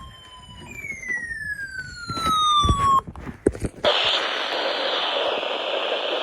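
Radio receiver: a whistle gliding steadily downward in pitch, a few sharp clicks, then steady static hiss from about four seconds in.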